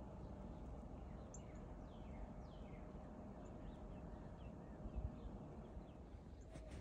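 Faint outdoor ambience with small birds chirping: a scatter of short, quickly falling high chirps over the first few seconds. A single soft low bump about five seconds in.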